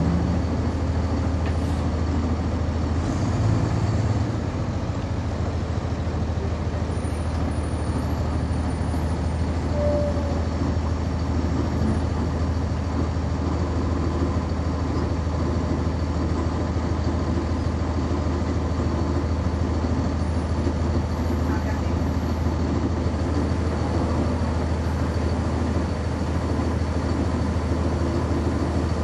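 Cummins ISC straight-six diesel of a 1999 NovaBus RTS transit bus running at a steady speed, heard from inside the bus as a constant low drone.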